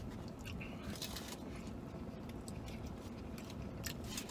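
A man chewing a mouthful of chicken burrito, with a few short crackles from its foil wrapper.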